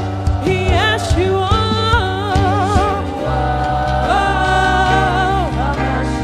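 Gospel worship music: sung lines with wide vibrato and a long held note, over a steady bass accompaniment.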